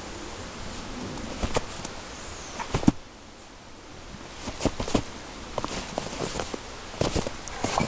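Shar Pei digging and burrowing its head into deep snow: irregular crunches and scuffs of paws and snout in the snow, with a quieter stretch about three seconds in.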